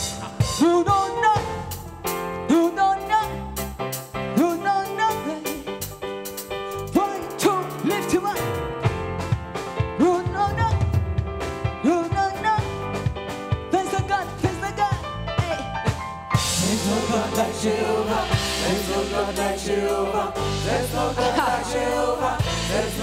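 Live gospel praise band playing: drum kit, electric guitar and keyboard under a singing voice. About two-thirds of the way in, cymbals come in and the band fills out.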